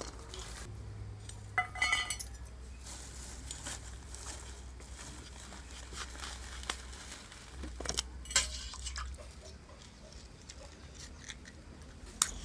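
Stainless steel bowls clinking and knocking as pointed gourds are cut with a hand blade and dropped into them: a few sharp, ringing clinks about two seconds in, a cluster around eight seconds and one near the end.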